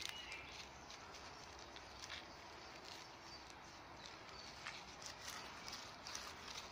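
Gloved hands breaking up and sifting loose soil: faint, irregular crumbling and scraping with scattered small clicks of falling clods.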